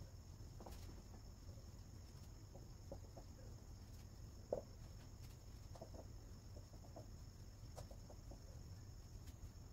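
Near silence: room tone with a steady low hum and scattered faint, short sounds, with one sharper tick about four and a half seconds in.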